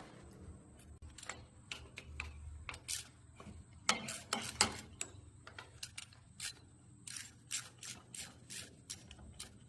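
Irregular light clicks and clinks of hand tools being handled on the bolts of a tractor's PTO housing, with a few louder ones about four to five seconds in.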